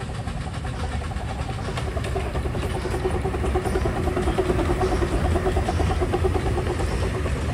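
Small live-steam locomotive pulling a riding train and running past close by. It makes a low rumble with a rapid, steady pulsing beat and grows louder as it nears, loudest just past the middle.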